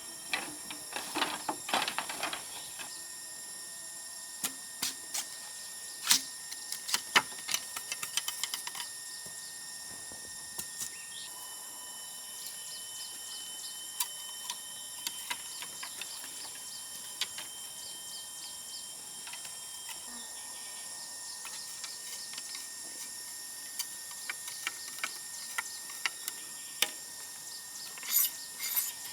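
Steady high-pitched insect drone with scattered sharp taps and clicks coming in small clusters.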